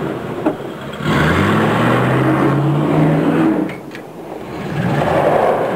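Mouth-made airplane engine noise for a toy Lego plane's takeoff: a drone that rises in pitch and holds for a couple of seconds, dips, then a rushing whoosh swells near the end.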